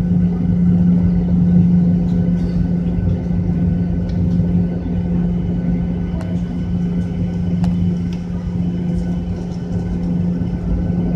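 Jet airliner's engines running at a steady hum, heard from inside the cabin beside the wing as the plane taxis before take-off.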